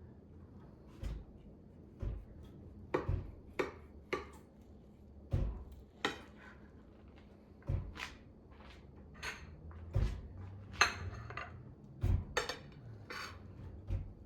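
A knife and cutlery clinking and knocking against a dish while a baked cake is cut and slices are lifted out: a string of irregular sharp clicks and knocks.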